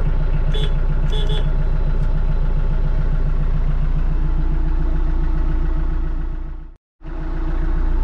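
TYM T474 tractor's diesel engine idling steadily, heard from inside the closed cab, with a few light clicks in the first second and a half. The sound fades out for a moment near the end and fades back in.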